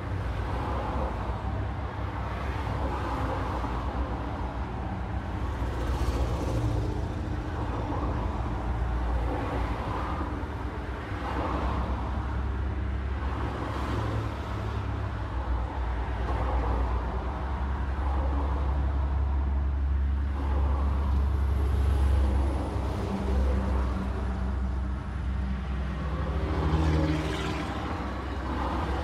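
A car being driven: a steady low rumble of engine and road noise, with a few brief swells.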